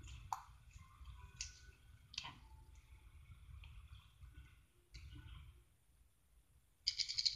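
Bead-filled slime squished and pulled apart by hand on a tile floor, giving scattered small sharp clicks and crackles, with a short burst of rapid clicking near the end.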